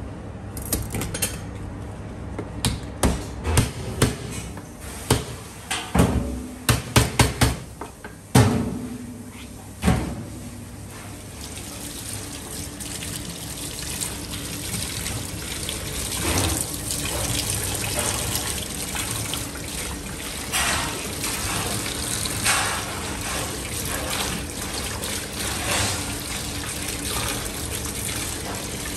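A large kitchen knife chopping through lobster shell on a plastic cutting board, a run of sharp cracks and knocks through the first ten seconds or so. Then a tap runs into a stainless steel sink as the lobster pieces are rinsed under it, a steady splashing hiss.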